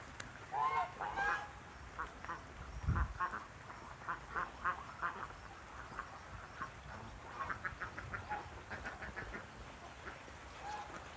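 Lion Head geese honking and calling, many short calls one after another, with a quick run of short calls in the second half. A dull low thump about three seconds in.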